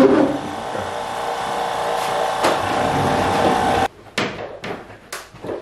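A large side-by-side refrigerator being shifted across the floor: a steady rolling, scraping rumble with a few knocks, which cuts off abruptly. It is followed by several short, sharp taps and clicks as its power cord is handled at the wall outlet.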